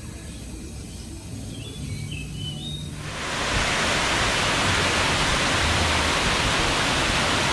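A few faint bird chirps, then about three seconds in a sudden switch to loud, steady rushing water, as from a waterfall.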